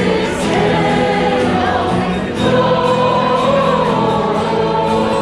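A choir singing with musical accompaniment, several voices holding and moving between sustained notes, with a brief dip about two seconds in before the singing carries on.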